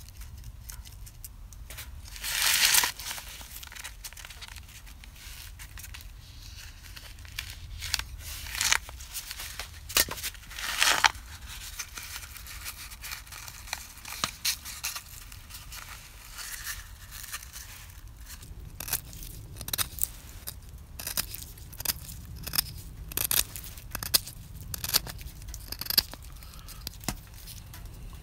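Stiff birch bark being handled and worked: scraping and crackling as a knife point works the bark sheet and as the bark is folded and rolled into a tube. Two louder scraping, tearing-like sounds come about two and a half and eleven seconds in, and a run of short, sharp crackles and clicks fills the second half.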